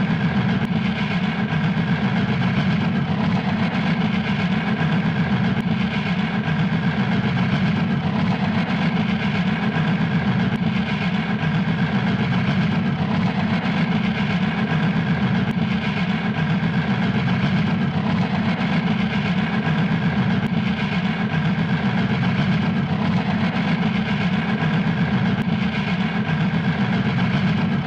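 Fast, steady puffing of a running engine, unbroken and even in level throughout.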